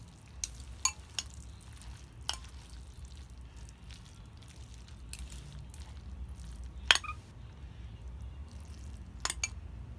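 Eating utensils clicking sharply against a dish, about seven separate clicks with a close pair near the end, over a steady low hum.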